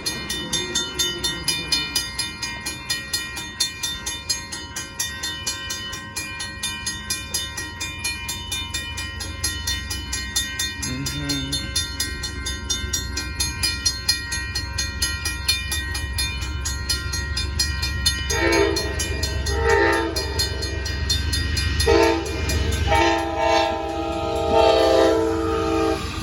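Amtrak Texas Eagle passenger train approaching, its low rumble building. From about two-thirds of the way in its locomotive horn sounds four blasts, the last and longest held about three seconds. A steady rapid ringing runs underneath throughout.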